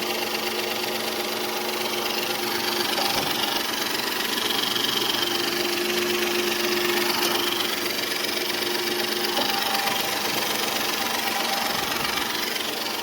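2007 Dodge Charger's V6 engine running steadily with a slight ticking noise.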